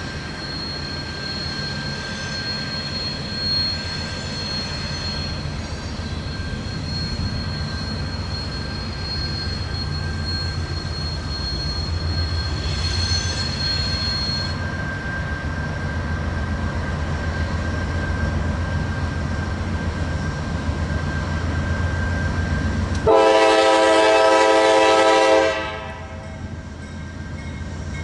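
CSX CM44AC rebuilt GE diesel locomotive running slowly at the head of a loaded coal train, its engine rumbling steadily, with a thin high wheel squeal through the first half. Near the end it sounds one long horn blast of about two and a half seconds, the loudest sound here.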